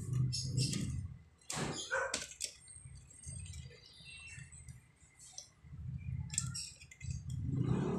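Hands handling and repositioning an assembled plastic model kit figure: scattered light clicks and rattles of plastic parts, over a low steady background hum.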